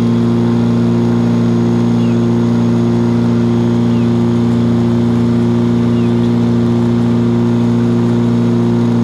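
Light propeller aircraft engine droning steadily at a constant cruise setting.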